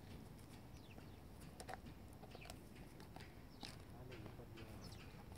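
Czechoslovakian Wolfdog gnawing a bone: irregular sharp clicks and cracks of teeth on bone, with birds chirping faintly.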